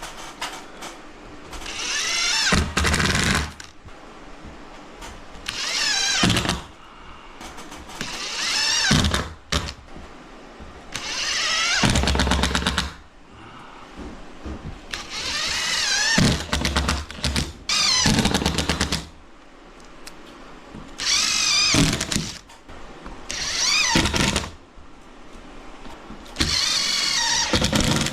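Power drill or screw gun driving screws in short runs, about nine bursts a couple of seconds apart, its motor whine wavering as it loads up.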